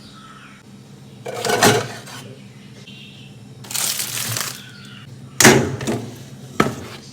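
Hard containers and fridge parts being handled, with a clatter about a second and a half in, a longer rustling clatter around four seconds, and sharp knocks at about five and a half seconds and again near the end. A low steady hum runs underneath.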